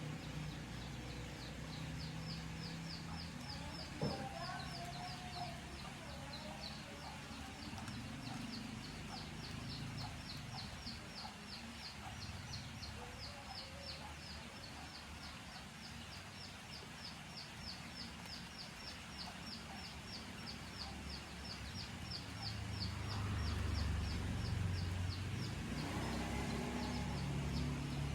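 Outdoor animal ambience: a high, rapid chirping that repeats several times a second, with a low rumble swelling near the end.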